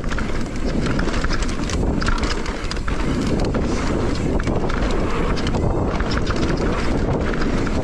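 Mountain bike rolling fast down a dirt singletrack: wind rushing over the microphone and tyres running on the dirt, with a steady run of small clicks and rattles from the bike over the bumps.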